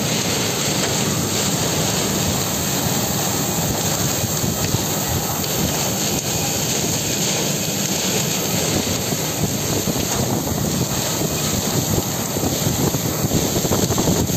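Heavy rain pouring down in strong storm wind: a steady, dense hiss with wind gusting on the microphone, a little louder near the end.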